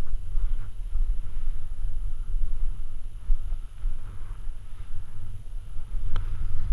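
Wind buffeting a body-mounted action camera's microphone: a steady low rumble that keeps rising and falling. There is one short sharp click about six seconds in.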